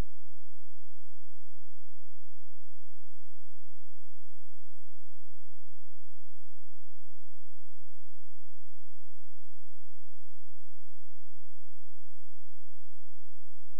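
Steady electrical hum of two low tones, unchanging throughout, with only faint hiss and no other sound.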